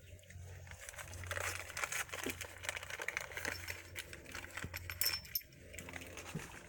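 Light metallic clinking and rattling from tools and parts being handled, busiest in the middle seconds.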